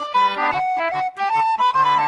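Background music: a melody of held notes stepping up and down over a steady beat.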